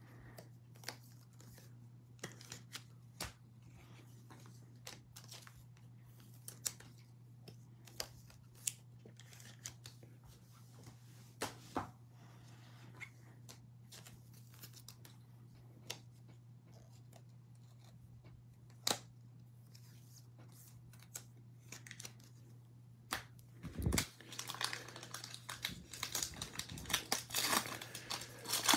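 Faint scattered clicks over a low steady hum, then near the end the crinkling and tearing of a Mosaic NFL trading-card pack's foil wrapper being ripped open.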